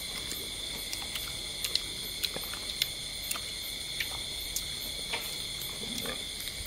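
Steady high-pitched chirring of night insects, with scattered small clicks and smacks of people eating with their hands.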